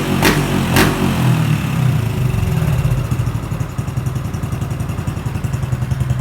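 Motorcycle engine through an aftermarket open (straight-through) exhaust with a stainless steel header: two sharp throttle blips in the first second, then a steady idle with an even, pulsing exhaust beat.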